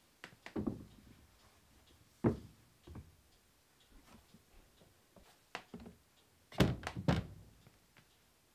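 Thunks and knocks from a white tilt-out shoe cabinet as slippers are dropped into a compartment and its hinged flaps are swung shut. There are several scattered knocks, then a quick cluster of the loudest ones near the end.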